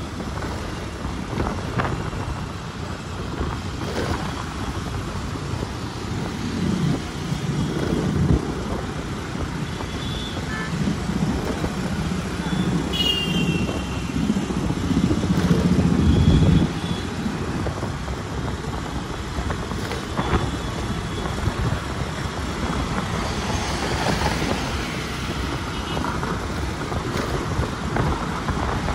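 City road traffic heard from a moving car: continuous engine and tyre noise, with a heavier low rumble building from about seven seconds in and dropping off suddenly around sixteen seconds, and a few brief high-pitched tones.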